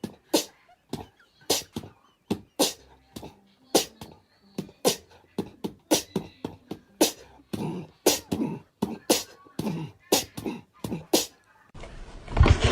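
A long run of sharp clicks and pops, about two to three a second and unevenly spaced, with a few short pitched sounds mixed in during the second half.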